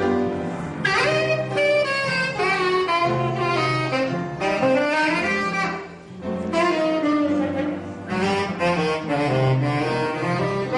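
Jazz saxophone solo over a double bass line in an instrumental break of a swing-style song, the melody sliding upward about a second in.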